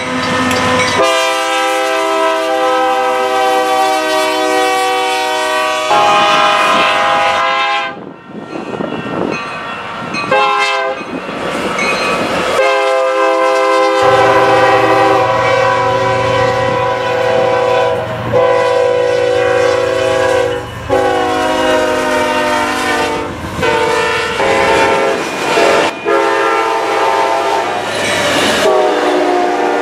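Diesel locomotive air horns sounding one after another, each a long chord of several notes held steady, changing abruptly several times as different passing trains follow each other. Wheels clatter over the rail joints in between.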